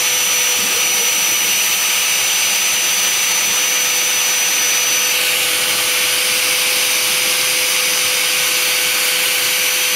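Router spindle on a homemade CNC machine running steadily as it mills a sheet: a continuous motor whine with cutting noise and a steady high tone.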